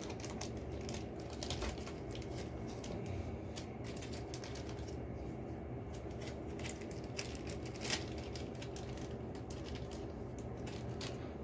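Irregular light clicks and taps of a microscope being handled and adjusted, a few sharper ones along the way, over a steady low hum.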